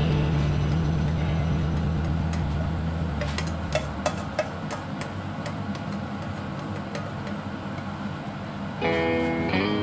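Spatula scraping batter out of a metal mixing bowl into a frying pan, with light clicks and taps of utensil on the bowl over a low hum that fades out. Guitar music comes in near the end.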